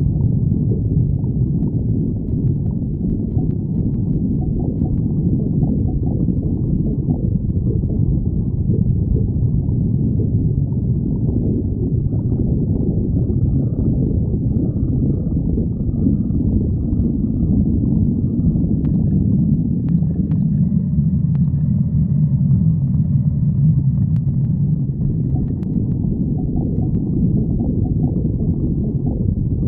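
A person's stomach growling: continuous low rumbling and gurgling, which swells into a deeper, drawn-out rumble in the latter half.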